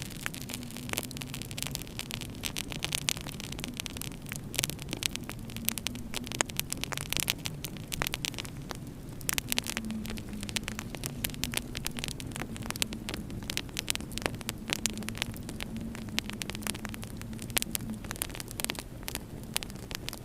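Wood fire burning in a fireplace, crackling and popping in many irregular sharp snaps, over a steady low hum.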